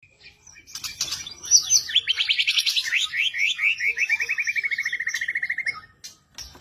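Songbird singing: a few quick chirps, then a long rapid trill of about ten notes a second that slowly falls in pitch and stops after about four seconds.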